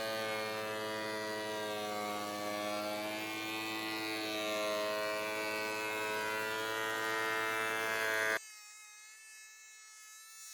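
DeWalt DW735 thickness planer running, a steady motor whine whose pitch wavers slightly as it cuts poplar boards. About eight seconds in the sound drops suddenly to a much fainter, thinner whine.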